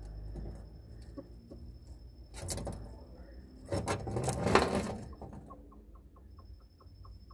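Black bantam hen, just after laying, rustling and shuffling as she stands up and turns to her egg, loudest about four seconds in. A run of soft, evenly spaced ticks, about four a second, follows near the end.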